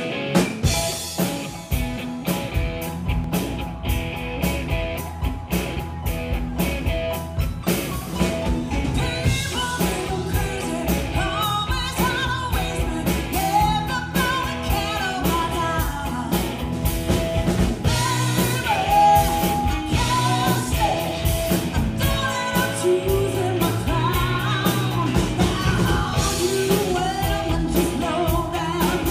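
Live rock band playing: drum kit, electric guitar, bass guitar and keyboard, with a woman's lead vocal coming in about eight seconds in.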